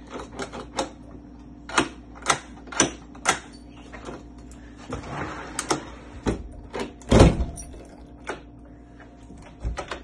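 Irregular sharp clicks and knocks from a door and its lock hardware being handled and checked, with the loudest knock about seven seconds in.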